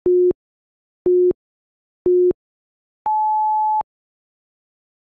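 Interval timer's electronic countdown beeps: three short, low beeps a second apart, then one longer, higher beep about three seconds in that marks the start of the next work interval.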